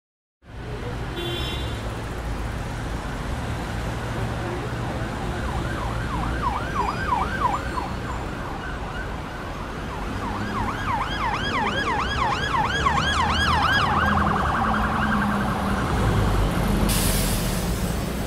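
A siren yelping in rapid rising-and-falling sweeps, about four a second, in a short spell about six seconds in and a longer one from about ten to fourteen seconds. Under it runs a steady low rumble.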